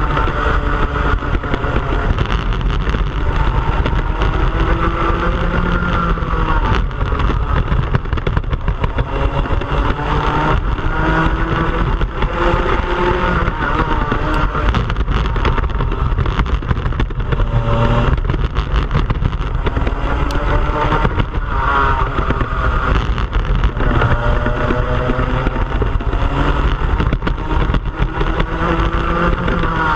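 Onboard sound of a racing kart's engine at race pace, its pitch rising along the straights and falling away into the corners, over and over, with short knocks from the kart running over the track.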